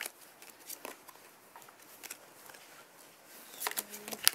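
Playing cards being snapped and tossed down onto piles on a carpeted floor during a card game: scattered sharp card slaps, then a quick cluster near the end with the loudest snap just before it ends.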